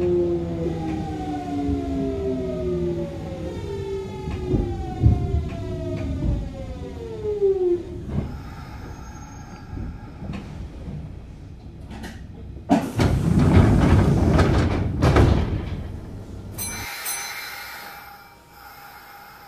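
Kintetsu 1220 series early Hitachi GTO-VVVF inverter whining in several tones that fall steadily in pitch as the train slows, dying out about eight seconds in. Then come rumble and clatter, with a loud burst of noise a little past the middle. After an abrupt change near the end, the sound is much quieter with faint steady tones.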